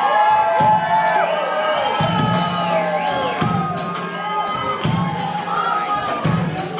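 Concert crowd cheering and whooping over a live band playing, with many voices sliding up and down at once.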